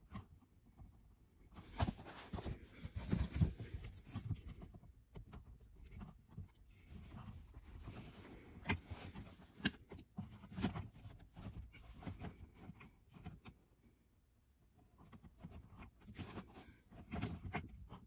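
Hands handling and routing trailer brake controller wiring and plastic connectors under a car's dashboard: irregular rustling with small clicks and taps, with a short pause about three-quarters of the way through.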